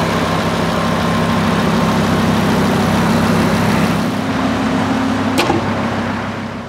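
The 2015 Lamborghini Huracán's 5.2-litre V10 running steadily at an even pitch, easing off near the end, with a sharp click about five and a half seconds in.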